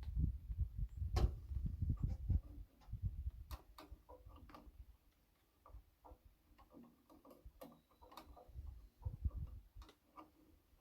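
Scattered light clicks and taps, over low rumbling noise in the first three seconds.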